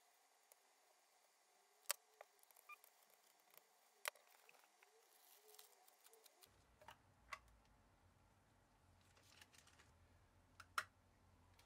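Near silence broken by a few sharp clicks and clinks of small steel bolts and a cover being handled as they come off a Kawasaki ZX-7R engine's crankcase, the loudest about two seconds in, about four seconds in and near the end.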